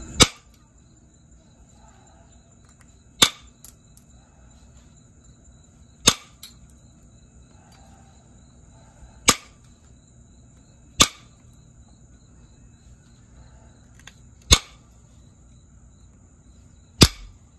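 Flakes snapping off the edge of a jasper slab under a copper-tipped flaking tool: seven sharp clicks, one every two to three seconds.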